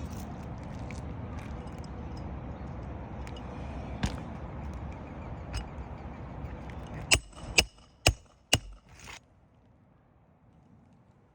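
Steady rushing background noise, then four sharp metallic strikes about half a second apart, each ringing briefly, before the noise drops away to a low hush.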